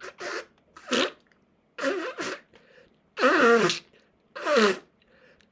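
A person blowing their nose hard several times, short forceful honking blows one after another, as congested sinuses clear.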